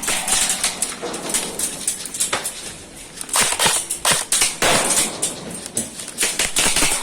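Airsoft gunfire in an exchange among metal shipping containers: many irregular sharp cracks and clatter, dense through most of the stretch.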